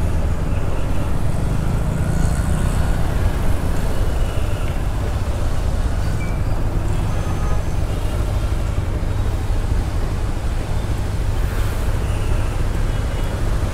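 Hero Xpulse 200 4V's single-cylinder engine running as the motorcycle rides, with steady wind and road noise.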